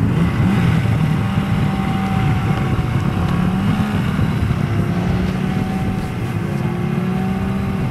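Snowmobile engine running steadily as it tows, its pitch wavering slightly up and down with the throttle.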